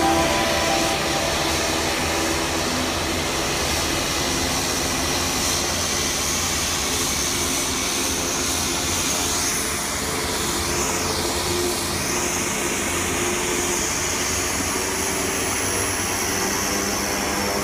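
Turboprop aircraft engines running: a steady, even noise with a high turbine whine that dips and swings back up about ten seconds in.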